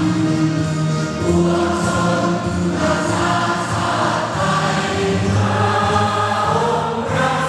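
Music with a choir singing slow, held notes.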